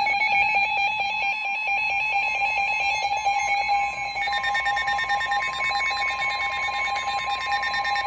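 Several weather alert radios sounding their alarm tones together for a flash flood warning: a steady, rapidly pulsing beep, joined about four seconds in by a second, higher steady tone, the NOAA Weather Radio warning alarm tone.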